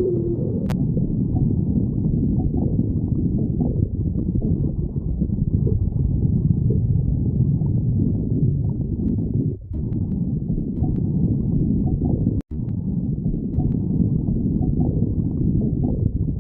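Human stomach growling: a continuous low gurgling rumble that briefly drops out twice past the middle.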